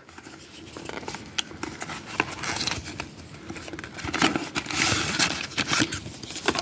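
Paperboard Happy Meal toy box being opened by hand: irregular crinkling, tearing and scraping of card and paper as the flaps are pulled back and the insert slid out, busiest about four to five and a half seconds in.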